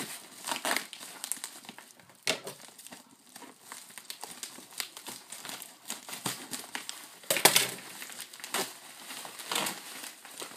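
Yellow padded mailer crinkling and crackling as it is handled and cut open, in irregular rustles and sharp crackles, with the loudest burst about seven seconds in.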